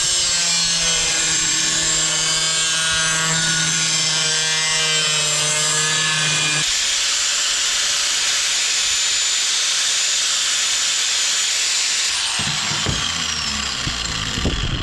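Angle grinder with a cut-off wheel cutting sheet metal: a steady whine with a hiss from the cut. About twelve seconds in it is switched off and coasts down with a falling whine, then a few knocks as it is set down on the table.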